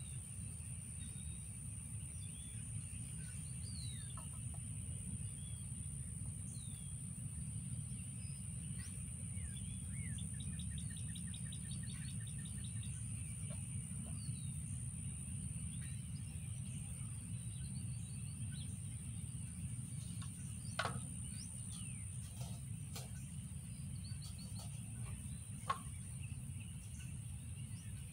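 Outdoor ambience: birds chirping and calling, with a steady high insect drone over a steady low rumble. Two sharp knocks stand out in the second half.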